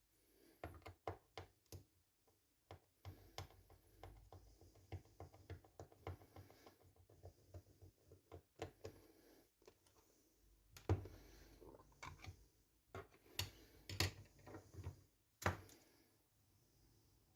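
Quiet, irregular clicks, taps and knocks of small hard objects being handled on a desk, a few sharper knocks standing out about eleven, fourteen and fifteen seconds in.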